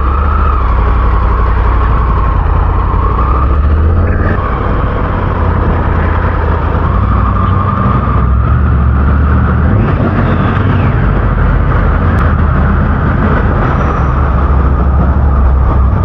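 Motorcycle engine running steadily as the bike rides along, under a constant heavy low rumble.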